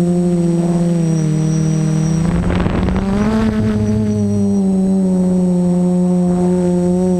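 Camera drone's motors and propellers humming steadily, heard from the GoPro on board. The pitch dips slightly about a second in and rises again about three seconds in. A short rush of wind noise comes with the rise.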